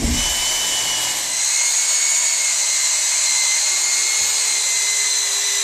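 HSK handheld plastic-welding extruder running steadily, a high-pitched motor whine over an even hiss, as it feeds and melts HDPE welding rod.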